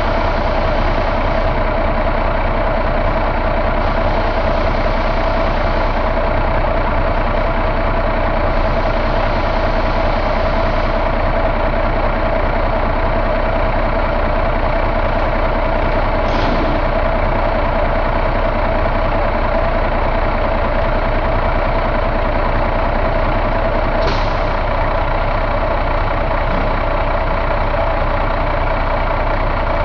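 2009 Cummins ISX inline-six diesel engine idling steadily, heard up close with the hood open, with two brief hisses partway through.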